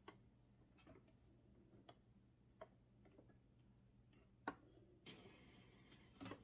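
Faint, irregular small clicks and ticks of hands working the needle and threading area of a Brother SQ9130 sewing machine, over a low steady hum, with a brief hiss about five seconds in.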